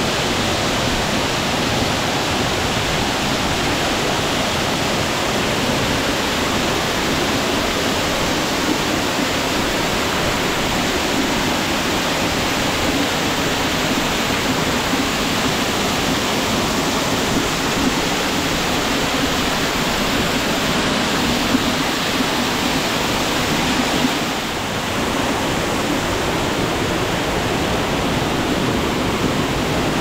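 Waterfall pouring, heard close up as a steady, loud rushing of falling water, briefly a little quieter about 25 seconds in.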